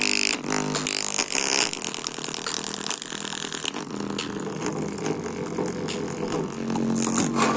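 Music playing through a small bare full-range speaker driver with a rubber-surround cone.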